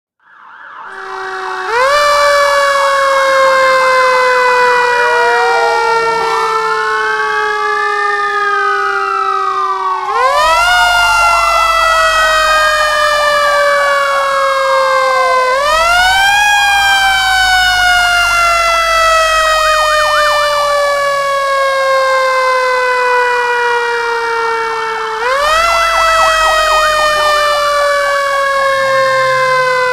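Fire truck siren wailing loudly. Its pitch jumps up four times and each time falls slowly over several seconds, with a second siren tone arching up and down over it and a low rumble under parts of it.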